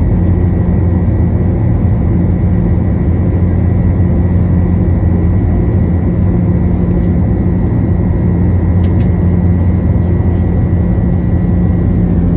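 Airliner's jet engines running at high take-off power, heard from inside the cabin over the wing: a steady roar with a low hum and a faint thin high whine.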